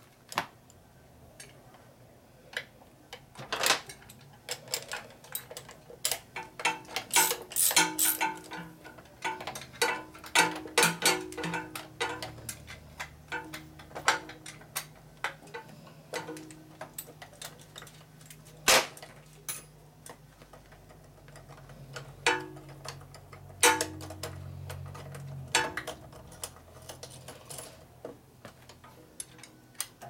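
Metal hand tools and bolts clicking and clinking irregularly during motorcycle assembly, some strikes leaving a short metallic ring. A low steady hum runs through the middle stretch.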